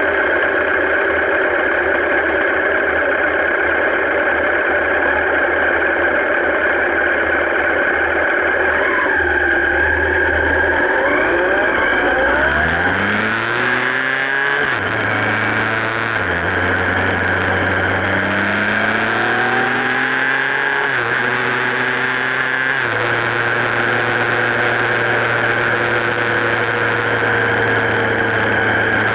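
Motorcycle engine idling, then pulling away about twelve seconds in: its pitch rises and drops back with about three gear changes before settling to a steady cruise. There is rushing wind and road noise on a camera mounted on the bike's frame.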